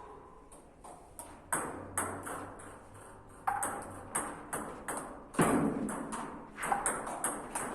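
Table tennis rally: the ball clicking sharply off the bats and table in quick alternation, about two hits a second, starting about a second and a half in.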